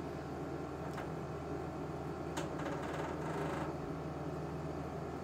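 Quiet kitchen room tone with a steady low hum, and a faint soft rustle with a small click about two and a half seconds in as a lime half is squeezed by hand over a glass bowl of yogurt and spice paste.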